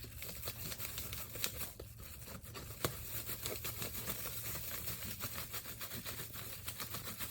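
Scissors snipping and packaging being torn and crinkled open: a steady run of small clicks and rustles, with one sharper click about three seconds in.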